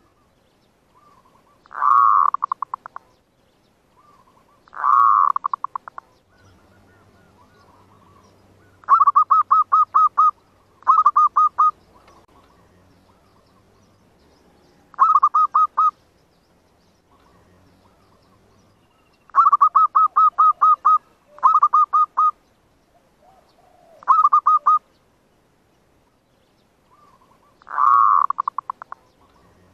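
Zebra dove (perkutut/merbuk) cooing: about nine bouts of fast stuttering coos, each a second or two long with pauses between, a few of them opening with a longer swelling note. It is the kind of call used as a decoy to lure wild zebra doves.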